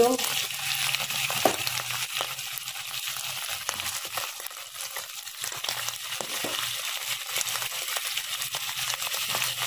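Pieces of goat liver sizzling and crackling in hot oil in a kadai along with whole garlic cloves and sliced onion, with a few short knocks as more pieces are dropped into the pan.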